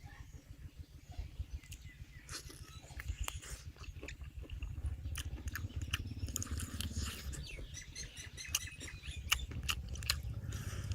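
Crunching and chewing of crispy battered fried squid, with many irregular sharp crackles as it is bitten and chewed.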